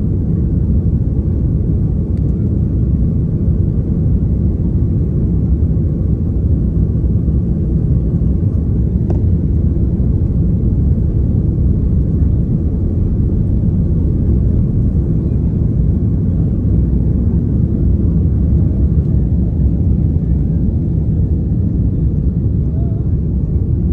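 Airbus A330 at takeoff thrust heard from inside the cabin: a loud, steady low rumble of the jet engines and the takeoff roll, continuing without a break as the aircraft lifts off.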